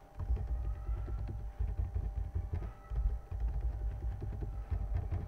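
Rapid keystrokes on a computer keyboard, a quick run of dull clicks, with a faint steady hum underneath.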